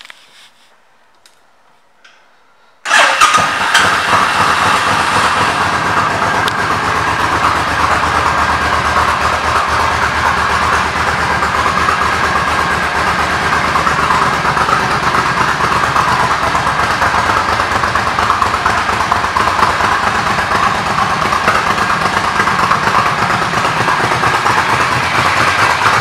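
2004 Suzuki Volusia 800's V-twin engine starting abruptly about three seconds in and then idling steadily.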